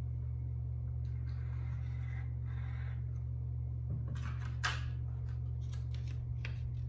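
Pencil scratching on paper as a number is written, over a steady low hum. About halfway through comes a sharp click, then the paper slip is handled and folded with light rustles and clicks.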